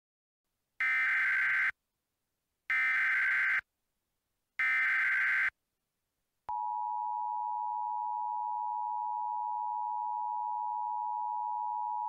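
Emergency Alert System header: three bursts of SAME digital data tones, each about a second long with a second's gap between them, followed about six and a half seconds in by the steady attention tone, which holds on. This sequence marks the start of a new emergency alert broadcast.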